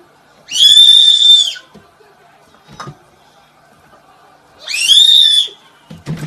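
A baby shrieking angrily: two long, high-pitched screeches about four seconds apart, each sliding up in pitch as it starts.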